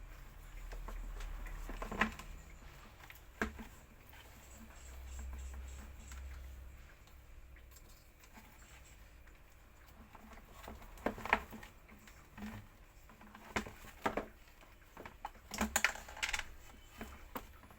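Scattered light clicks and knocks of hand work on parts, irregular and clustered most thickly in the last third, over a faint low rumble.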